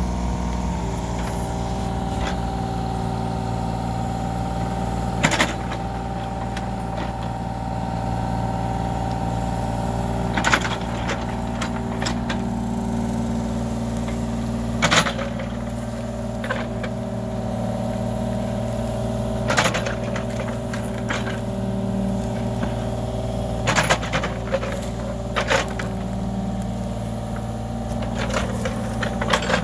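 Mini excavator's diesel engine running steadily while it digs wet soil, with a sharp clank every few seconds from the bucket and arm linkage.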